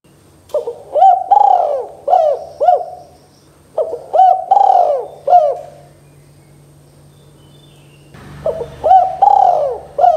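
Spotted dove cooing loudly: three phrases a few seconds apart, each a run of about five short, arching coos.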